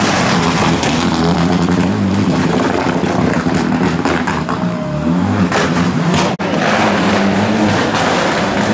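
Rally car engines driven hard on a wet tarmac stage. One car goes by and another comes up, with the engine pitch stepping up and down through gear changes and a few sharp cracks a little before the midpoint of the second half.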